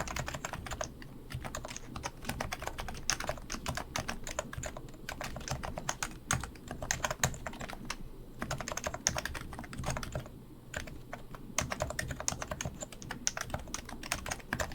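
Topre REALFORCE R4 keyboard with 45 g electrostatic capacitive switches being typed on: a fast, continuous run of key strokes, with two brief pauses about eight and ten seconds in.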